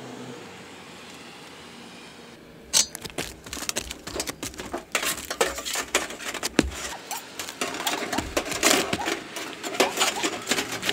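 Thin sheet-metal storm collar being worked around a galvanized chimney pipe and flashing, clinking and rattling in quick, irregular metallic clicks from about three seconds in.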